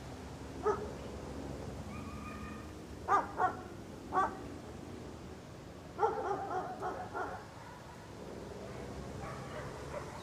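A dog barking: single barks, then a pair and another bark, then a quick run of barks about six seconds in, with fainter barks near the end over a steady background hiss.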